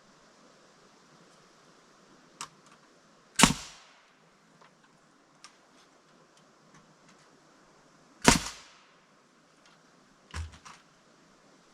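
Two sharp, loud knocks about five seconds apart, each with a short ringing tail, among fainter clicks and taps.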